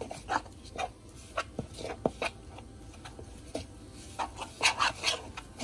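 A spoon scrapes and clinks in a bowl as rice flour is stirred together with hot water. There are scattered short knocks and a few squeaky chirps, with a busier run near the end.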